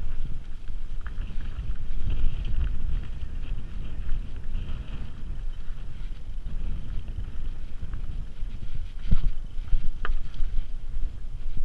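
Wind buffeting a GoPro's microphone over the running noise of a mountain bike rolling down rocky singletrack, with rattles and clicks from the bike and two sharper knocks about nine and ten seconds in as it rolls over rock.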